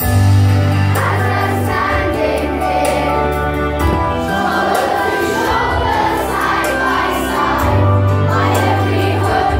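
A group of children singing a song together over musical accompaniment with steady low bass notes. The music comes in sharply right at the start.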